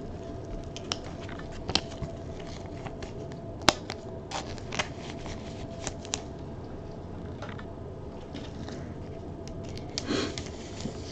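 Trading cards being handled: scattered faint clicks and scrapes as cards and their plastic holders are moved about, over a low steady hum.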